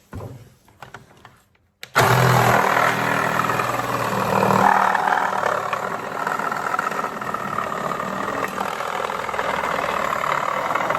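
An electric power tool switches on abruptly about two seconds in and runs steadily, a loud motor whir. A few light clicks come just before it.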